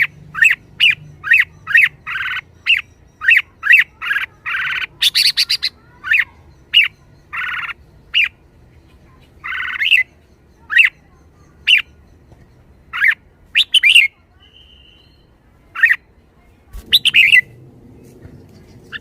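Red-whiskered bulbul calling: a quick run of short, sharp notes, about two or three a second, mixed with some longer notes. The calls thin out after about nine seconds.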